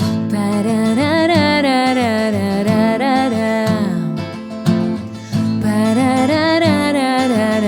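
Acoustic guitar playing under a woman's voice singing a wordless melody in two long, gliding phrases.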